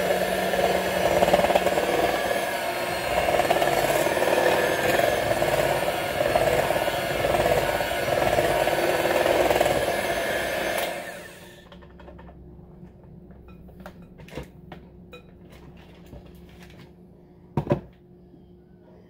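Electric hand mixer running steadily, beating softened cream cheese and marshmallow cream in a bowl; it stops about eleven seconds in. A few light clicks and one sharper knock follow.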